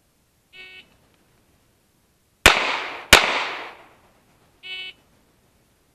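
An electronic shot timer beeps once, then a CZ 75 9mm pistol fires two quick shots about two-thirds of a second apart, each ringing off for about a second. A second beep, about four seconds after the first, marks the end of the 4-second time limit.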